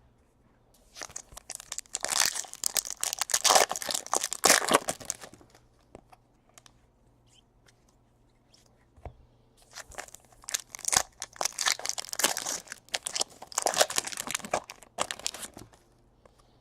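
Foil trading-card pack wrappers being torn open and crinkled by hand, in two bouts of crackling with a quiet pause between.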